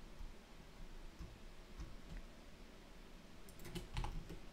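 Faint, scattered clicks of a computer keyboard and mouse, with a small cluster of clicks near the end as a key is pressed.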